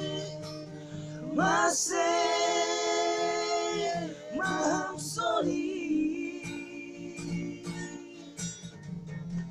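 A man singing long, held notes, sliding up into each one, to a strummed acoustic guitar. After about six seconds the voice drops lower and softer and the guitar strumming stands out more.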